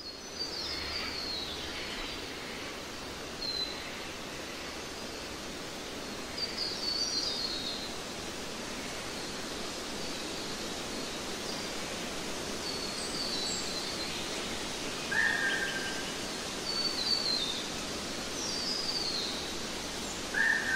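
Steady background hiss of outdoor ambience with small birds chirping: short, quick descending chirp phrases every few seconds, and two brief lower whistled notes in the second half.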